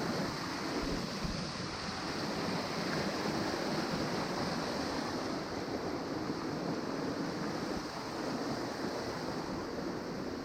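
Steady rushing of flowing water from a mountain creek, an even hiss with no breaks.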